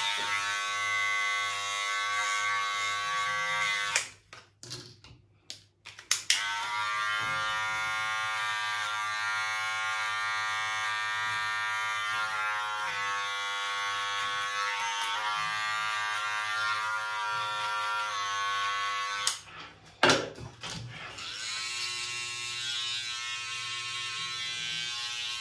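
Electric hair clippers buzzing steadily as they trim a beard. The buzz stops and starts again twice, about four seconds in and again around twenty seconds in.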